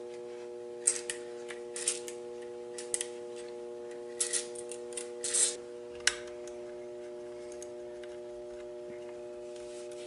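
Short hisses from an aerosol can with a straw nozzle spraying a flintlock's removed lock, in several quick bursts over about five seconds, followed by one sharp click. A steady low hum runs underneath.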